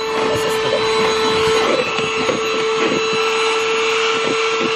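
Cordless vacuum cleaner running steadily with a constant whine while vacuuming a car's interior, with small scuffs as the nozzle moves over the surfaces.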